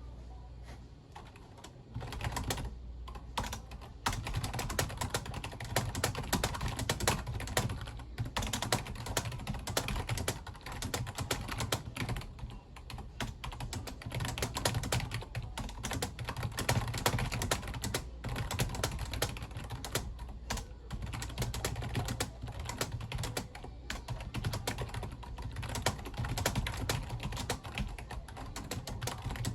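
Fast typing on a Logitech rubber-dome membrane keyboard: a dense run of soft key clicks, sparser for the first couple of seconds, with a steady low hum underneath.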